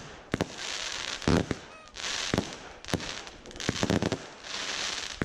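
Fireworks going off: a string of sharp bangs, the loudest about a second in, with several half-second bursts of crackling between them.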